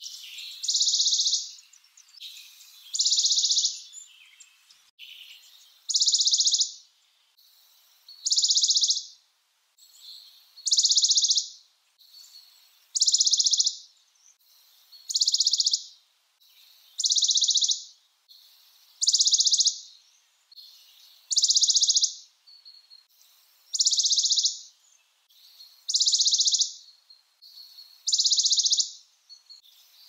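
Western Bonelli's warbler singing: a short, high trill on one pitch, repeated about every two seconds, some thirteen times.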